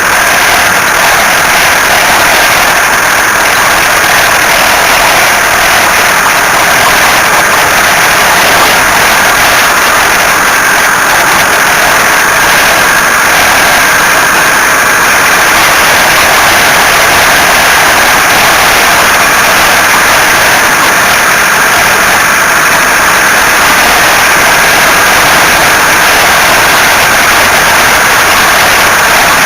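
Car engine running steadily, with a loud, unchanging high-pitched whine over a hiss: the kind of noise a car owner calls horrible.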